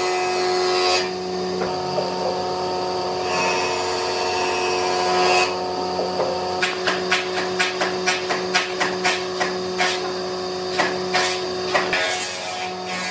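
A woodworking power tool running with a steady hum, working the wood in spells. From about halfway through comes a run of quick sharp knocks, about three a second.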